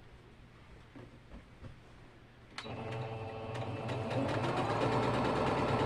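A few faint clicks of fabric being handled, then a sewing machine starts about two and a half seconds in and runs steadily, stitching a quilt block, getting louder toward the end.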